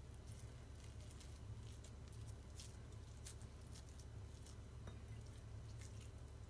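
Faint wet squishing and soft pats of moist bulgur dough being pressed and shaped between the hands to close a filled içli köfte, with scattered small clicks. A steady low hum sits underneath.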